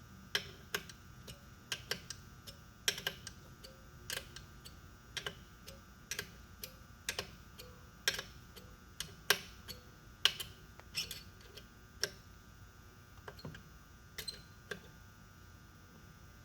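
Irregular sharp metallic clicks and light clinks from hand tools working a freed broken bolt out of a chainsaw's crankcase, about one or two a second, stopping near the end. A faint steady hum runs underneath.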